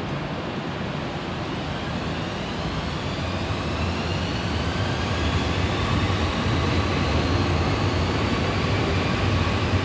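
Kobe Electric Railway 2000 series electric train pulling away from a station. Its motors give a whine that rises in pitch as it picks up speed, over a low rumble that slowly grows louder.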